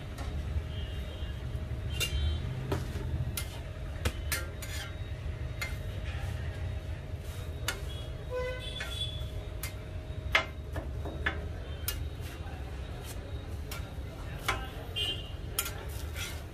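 Busy street-food stall: sharp metal clinks and taps of utensils over a steady low traffic rumble, with faint voices in the background.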